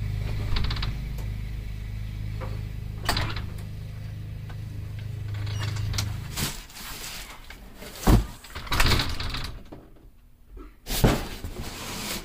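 Storm door being opened with a click of its latch, then a few sharp knocks and thuds, over a steady low hum that stops about six seconds in.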